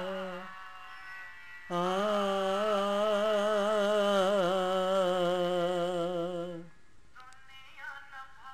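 A man singing long, held notes with a wavering, ornamented pitch. One note fades out about half a second in, and a new long note starts just under two seconds in and is held for about five seconds before it stops. Fainter sound follows.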